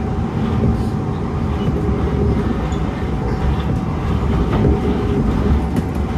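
Singapore MRT train running steadily along the track, heard from inside the carriage: an even rumble of wheels and running gear with a faint steady hum.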